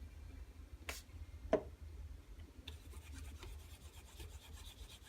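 Acrylic pen blank on a lathe: a light click and then a louder knock, followed from about two and a half seconds in by a steady fine rubbing against the blank, over a low hum.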